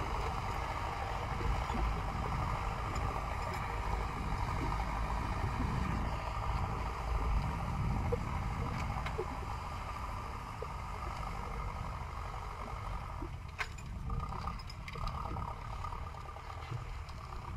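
Farm tractor's diesel engine running steadily under load as it pulls a disc plough through the soil. It grows a little fainter in the second half as the tractor moves away.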